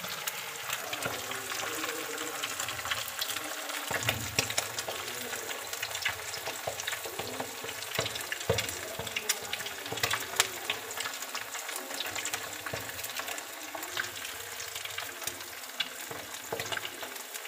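Masala-coated fish pieces frying in hot oil in a steel kadhai: a steady sizzle with frequent crackling pops.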